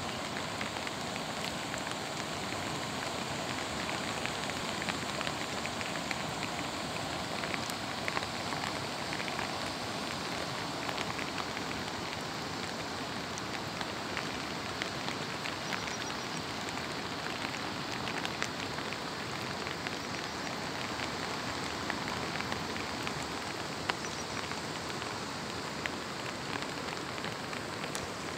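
Steady monsoon rain falling, with many scattered close raindrop ticks over the even hiss.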